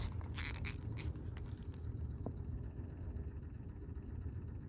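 A few sharp clicks and scrapes in the first two seconds over a low, steady rumble.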